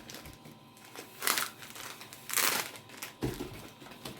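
Foil Pokémon booster pack wrappers being handled and crinkled, with two louder crinkles about one and two and a half seconds in.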